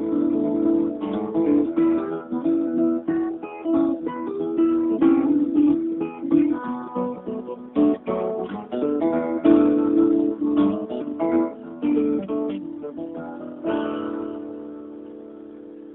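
Theme music on acoustic guitar, plucked and strummed, with its last chord ringing out and fading over the final couple of seconds.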